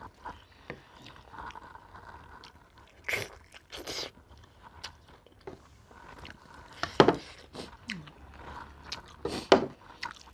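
Close eating sounds: chewing and mouth smacks while rice and greens are mixed by hand on a steel plate, with a few sharp knocks, the loudest about seven and nine and a half seconds in.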